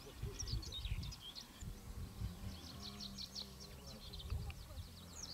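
A small songbird singing: quick runs of short, high, downward-sweeping chirps, one about half a second in and a longer one from about two to three and a half seconds, over a low rumble.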